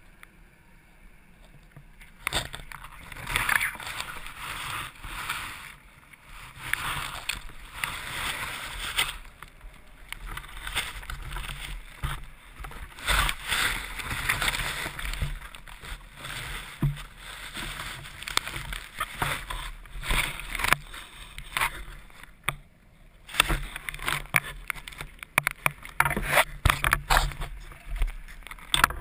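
Water sloshing and bubbling around a diver's camera, with many irregular clicks and knocks, starting about two seconds in.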